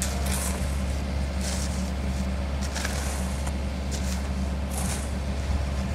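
Kobelco SK50 excavator's diesel engine running steadily, with brief hissing sounds now and then.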